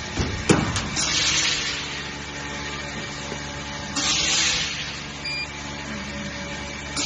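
PVC vacuum membrane press running with a steady machine hum, broken by three short hisses of air about three seconds apart. A sharp knock about half a second in.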